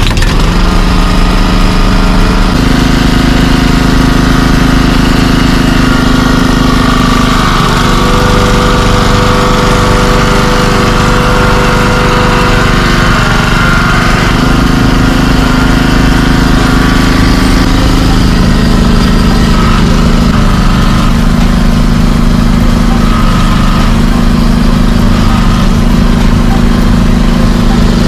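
Small engine of a Lukas hydraulic power unit running steadily, its note shifting slightly a few times.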